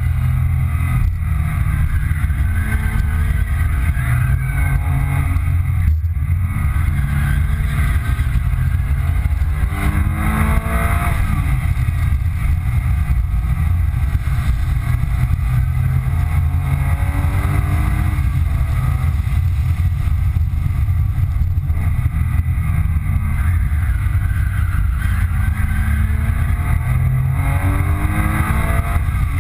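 2005 Porsche 997 Carrera 2's flat-six engine driven hard on track, heard from inside the cabin: the revs climb and drop several times through gear changes, over a heavy rumble of road and wind noise.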